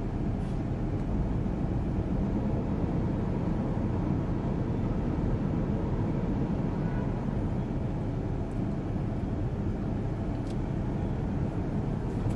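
Steady low rumble of a car's cabin, from the engine and surrounding traffic, while the car stands still.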